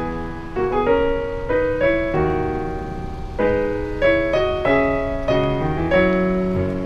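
Background piano music, with a new note or chord struck about every half second.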